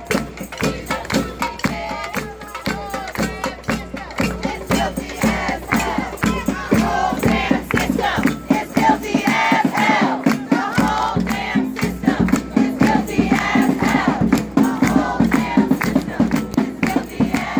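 A crowd of protesters chanting together over a quick, steady drumbeat, the voices growing louder about six seconds in.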